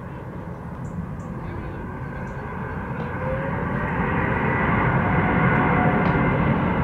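Embraer E195-E2 airliner's geared turbofan engines running as the jet taxis along the runway: a steady jet rush with a faint whine, growing louder and loudest about five to six seconds in.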